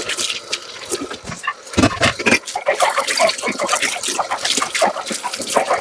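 Hand dishwashing at a sink: running water splashing, with irregular clinks and knocks of dishes being handled, busier from about two seconds in.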